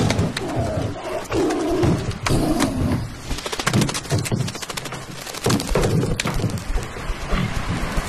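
Film sound-effects mix: a tiger growling in rough bursts, loudest in the first few seconds and again briefly later, over sharp clicks and knocks and a rising wash of sea noise.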